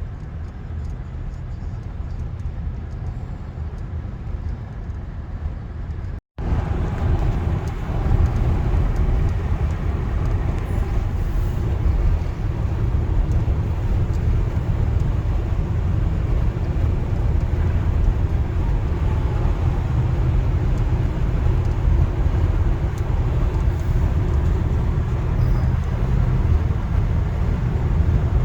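Steady low rumble of a car driving along a road. It drops out for an instant about six seconds in and comes back somewhat louder.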